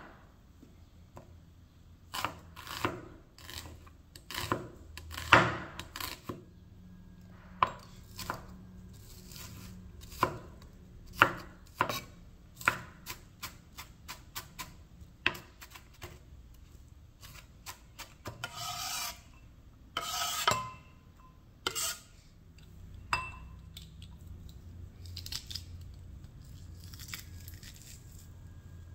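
A chef's knife chopping a red onion on a wooden cutting board: irregular sharp knocks of the blade against the board, with a couple of longer scraping sounds partway through.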